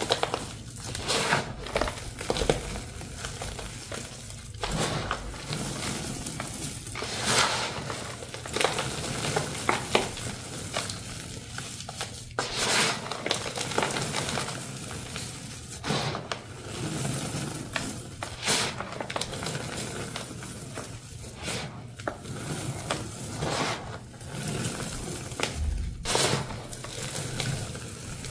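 Hands squeezing and crumbling dry powdery blocks mixed with cornstarch and confetti. The sound is a steady gritty, crunchy crackle with irregular louder crunches each time a handful is squeezed.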